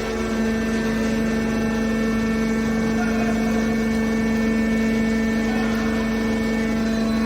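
Hydraulic scrap metal baler's power unit running, a steady mechanical hum and whine that holds one pitch throughout.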